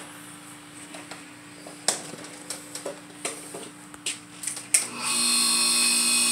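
An electric chainsaw-chain sharpener is handled with a few clicks and knocks. About five seconds in, its grinding-wheel motor switches on and runs with a steady high whine.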